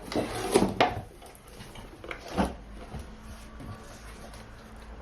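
Hands working at a doll's box packaging: a cluster of sharp clicks and rustles in the first second, another about two and a half seconds in, then only a faint steady hum.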